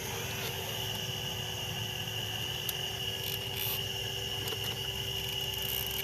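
Small electric motor and gearbox of a radio-controlled model construction vehicle whining steadily: a high whine that sets in about half a second in, over a lower hum and rumble with a few light clicks.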